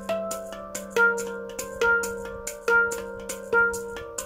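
Taopan Mini prototype handpan played with the fingertips: ringing steel notes over a sustained low tone, with one strong note struck again about once a second from about a second in and lighter notes between.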